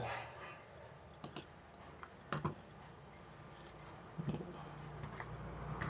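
A handful of scattered, sharp clicks from a computer mouse and keyboard. A low steady hum comes in about four seconds in.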